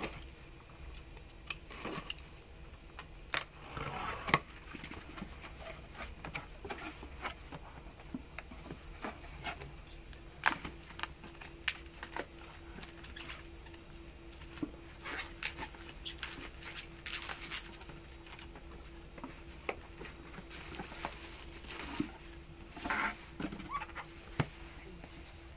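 Cardboard shipping boxes being cut open and unpacked: a box cutter slitting packing tape, flaps pulled back and packaging rustling, with scattered taps, scrapes and a few sharper knocks of cardboard.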